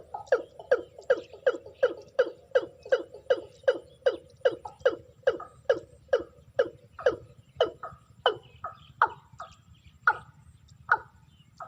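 Watercock calling: a long series of short, clipped notes, each falling slightly in pitch, at about two or three a second, slowing to about one a second in the second half.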